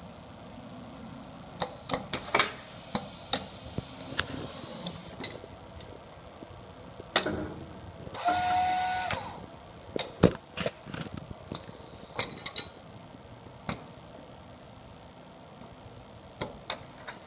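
Festo MPS pneumatic stations working: cylinders and solenoid valves clicking and knocking against their end stops at irregular intervals, with a hiss of exhausting air for a few seconds near the start. About eight seconds in, a small motor at the processing station whirs for about a second, with a steady whine.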